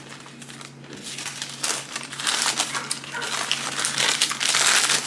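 Food packaging being crumpled and crinkled by hand. It is a quiet rustle at first and grows much louder and denser about a second and a half in.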